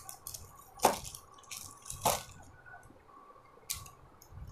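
Clear plastic packaging crinkling as a garment is handled and unwrapped: a few short rustles, the two loudest about one and two seconds in.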